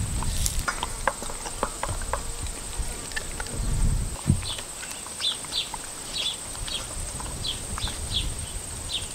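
A small terrier eating raw meat and chicken necks from a stainless steel bowl: chewing and crunching on bone, with irregular clicks of teeth and food against the metal bowl. A steady high buzz runs underneath.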